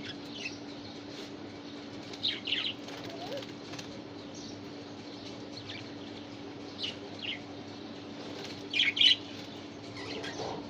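Baby budgerigars giving short, high chirps in a few scattered clusters, the loudest near the end, over a steady low hum.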